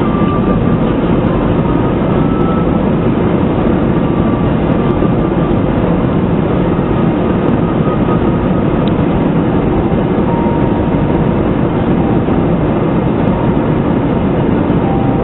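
Steady engine and airflow noise inside an airliner's cabin during flight, a constant low rumble with no change in level.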